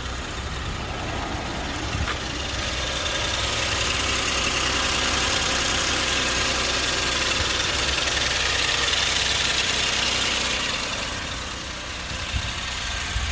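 Suzuki Jimny's engine idling steadily, with a rushing hiss that swells a few seconds in and fades again near the end.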